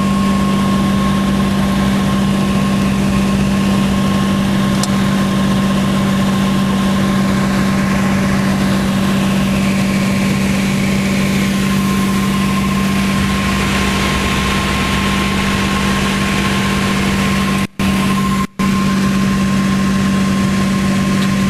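Piper Turbo Arrow's turbocharged six-cylinder engine and propeller droning steadily in the cabin in flight. The sound cuts out twice, very briefly, near the end.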